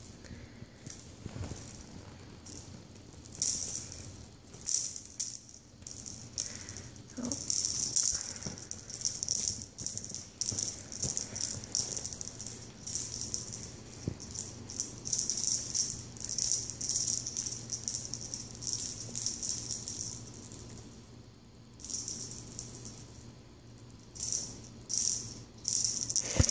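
Small bell on an elastic bungee cat toy jingling in quick, irregular shakes as the toy is bounced and batted about, with a short lull about four-fifths of the way through.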